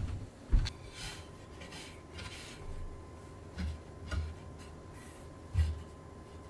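Silkscreen printing work by hand: short rubbing and scraping strokes with a few soft knocks, irregularly spaced.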